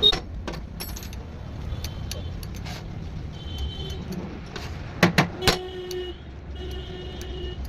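Sharp metallic clinks, one at the start and three close together about five seconds in, over a steady low rumble of traffic.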